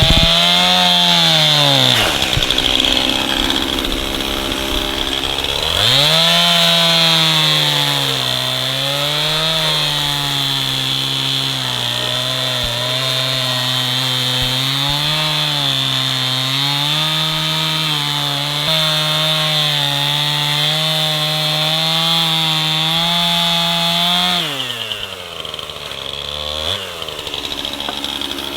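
Chainsaw cutting wood: the engine revs up, its pitch dipping and recovering again and again as it bogs in the cut, then falls back toward idle twice, about 1.5 s in and again near 25 s.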